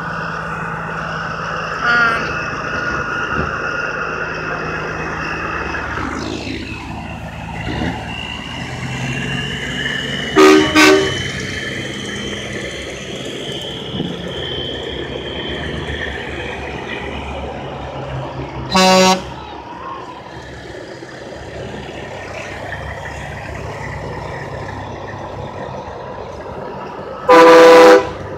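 Semi trucks rolling past one after another with their diesel engines running, and truck horns blown several times: a short toot about two seconds in, two loud blasts around ten seconds, another blast around nineteen seconds, and a long blast near the end, the loudest sounds here.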